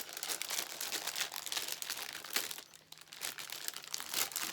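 Crinkling and rustling of crinkly material being handled, a dense run of small crackles that eases off about two-thirds of the way through and picks up again near the end.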